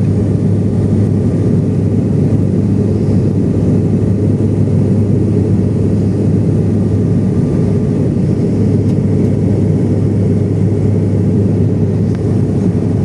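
Steady cabin noise inside an airliner: an even roar of engines and rushing air, with a constant low hum underneath.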